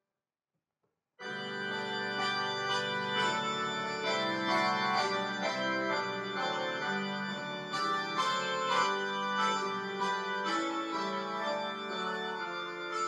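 Electronic keyboard played with an organ sound: held chords under a moving melody, starting after about a second of silence.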